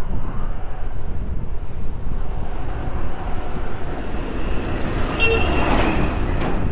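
Steady low wind rumble on the microphone, with a motor vehicle passing about five seconds in and sounding a brief horn toot.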